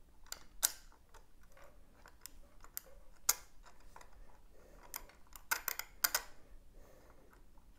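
Scattered light clicks and taps of small metal parts handled by hand: screws being pushed through aluminum beams and a drilled aluminum rod to test the hole alignment. The sharpest clicks come just under a second in and again a little past three seconds.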